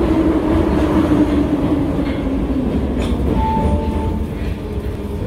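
Subway train heard from inside the car as it slows into a station: a deep rumble under a motor whine that falls slowly in pitch over the first two or three seconds. A brief high squeal comes about three and a half seconds in.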